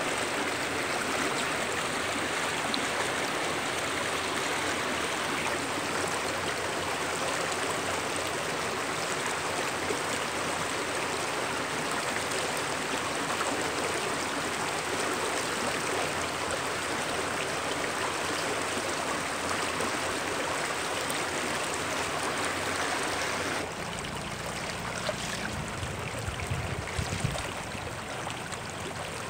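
Shallow stream running fast over flat rock and pebbles, a steady rushing and babbling of water. About 24 s in the sound dips a little and a low rumble joins it, with a few small knocks near the end.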